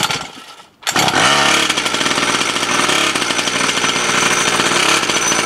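Small two-stroke engine of a kids' petrol dirt bike, pull-started from cold: it catches about a second in, revs up, then runs at high throttle with a loud, steady buzz.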